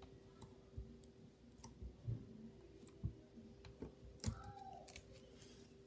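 Purple putty being poked and pressed with a finger against a hard surface, giving a scatter of faint, irregular small clicks, the loudest about four seconds in, over a faint steady hum.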